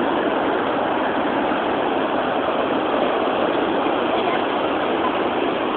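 Steady rushing noise of ocean surf on a sandy beach.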